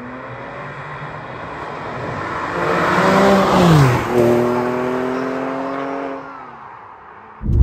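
Porsche 911 (997.1) with a modified exhaust driving past. Its flat-six engine note grows louder as it approaches and drops sharply in pitch as it goes by, then holds a steady note and fades away.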